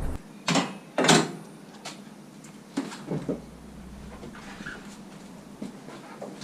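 A few sharp knocks and clunks: two louder ones in the first second or so, then fainter ones around three seconds in, over a faint steady background.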